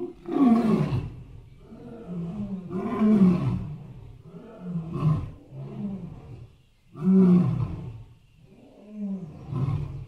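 Elephant-type roars, one about every two seconds, several falling in pitch. The loudest come at about half a second, three seconds and seven seconds in, with quieter calls between them.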